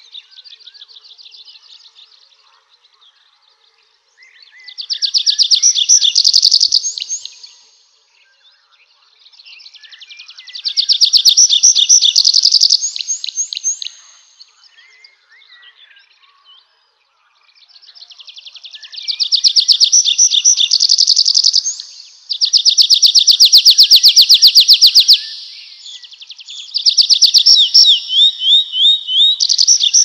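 A songbird singing, repeating a fast high trilled song about five times, each song lasting three to four seconds and swelling in loudness, with short pauses between.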